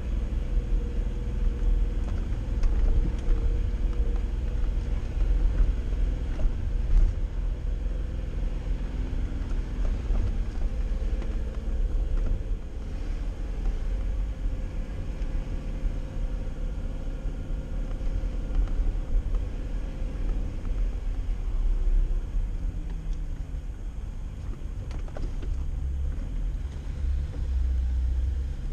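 Jeep engine and drivetrain running steadily as it crawls along an off-road trail, heard from inside the cab as a low rumble. The engine note drops in pitch about three-quarters of the way through.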